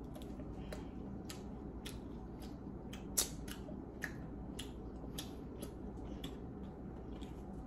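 Someone chewing food: irregular soft clicks, about two a second, over a low steady hum, with one louder click about three seconds in.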